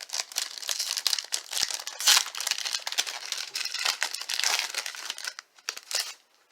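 Plastic wrapper of a baseball card pack crinkling and tearing as the pack is opened. The dense crackle goes on for about six seconds, loudest about two seconds in, then stops.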